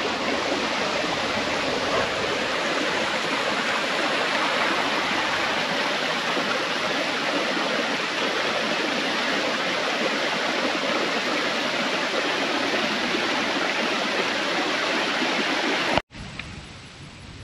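Fast-moving water running through a small ditch, a steady rushing that cuts off suddenly near the end.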